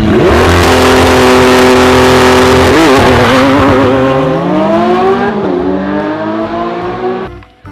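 Car engine revving, very loud. The pitch climbs at the start and holds steady, wobbles about three seconds in and sinks, then climbs again before dropping away and stopping near the end.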